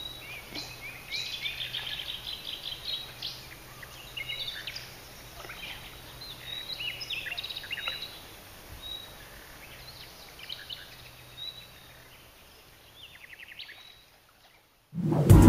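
Songbirds singing in short, quick chirps and trills, several overlapping calls. Loud music cuts in at the very end.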